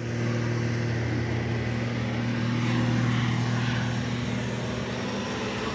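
An engine running steadily at an even idle, a low constant hum that does not change speed.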